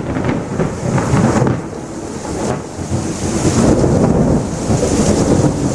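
Thunder rumbling over steady rain, easing slightly about a third of the way through and building again.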